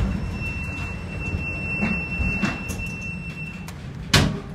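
Heavy seas against a ship heard from inside the bridge: a steady low rumble and wash as a wave breaks over the bow and spray sweeps across the foredeck. A thin steady high tone stops about three and a half seconds in, and a sharp loud knock comes near the end.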